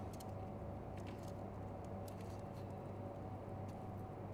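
A few faint, scattered clicks and taps of metal tweezers handling small wires and a circuit board, over a steady low hum.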